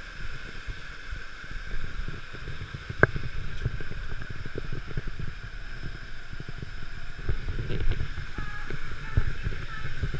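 Steady rushing-water noise with irregular low rumbling and buffeting on the microphone, and one sharp click about three seconds in.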